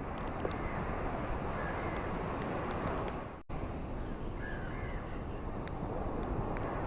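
Steady rain falling with a few sharp drips, and a bird calling faintly a couple of times in the background, typical of a crow cawing. The sound cuts out for an instant about halfway through, then resumes.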